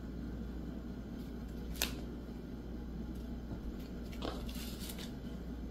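Cork fabric being folded over and pressed down by hand onto double-sided sticky tape: faint rustling and light taps, with a sharp click about two seconds in and a couple of softer ones near the end, over a low steady hum.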